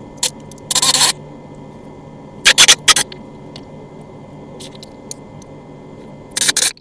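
Cordless drill/driver running in short bursts while driving screws: a longer burst about a second in, a quick run of three near three seconds, and another brief pair near the end, over a faint steady hum.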